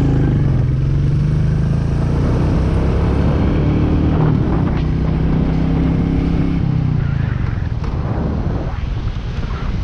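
Royal Enfield Meteor 350's single-cylinder engine running under way, its note holding steady and shifting in pitch a couple of times. It becomes rougher and a little quieter near the end.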